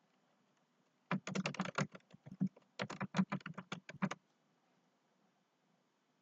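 Computer keyboard typing: a quick run of key clicks starting about a second in and lasting about three seconds, with a short pause in the middle.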